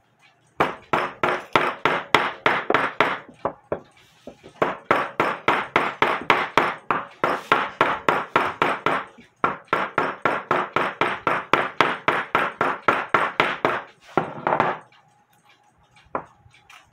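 Small ball peen hammer tapping a piece of wire laid on a wooden block, quick light strikes about four a second in two long runs with a short break. The wire is rotated between blows to hammer out its bends, straightening it the way one straightens a bent clock minute arbor.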